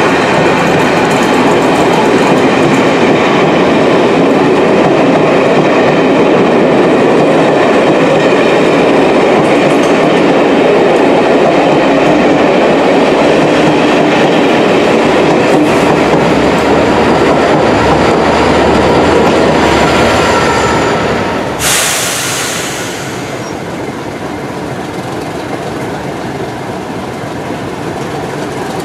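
Passenger train coaches passing at speed: a loud, steady rush of wheels on rail with a clickety-clack. About three quarters of the way through it breaks off suddenly to a quieter ride aboard a train, with air hiss over the running noise.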